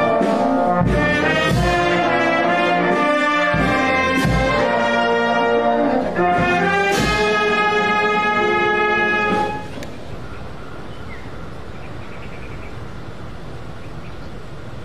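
Brass band playing a slow piece, brass notes over regular bass drum beats; the music stops about two-thirds of the way through, leaving a low steady background noise.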